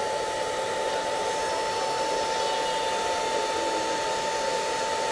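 Handheld hair dryer running steadily on its low setting: an even rush of air with a constant whine.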